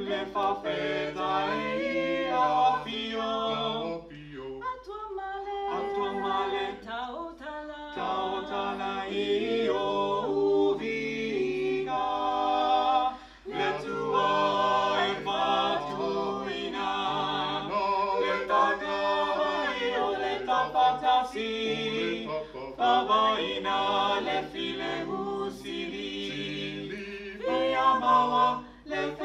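A small mixed group of voices, men and women, singing a cappella in parts. There is a brief break between phrases about 13 seconds in.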